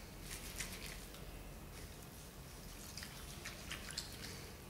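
Wet cotton cloth being rubbed and squeezed by hand in a steel bowl of lukewarm water: faint, irregular splashing and squelching.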